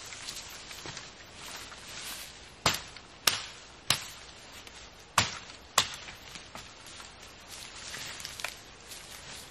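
Dry dead wood snapping as branches are broken off a tree: five sharp cracks, three in quick succession, then a short pause and two more.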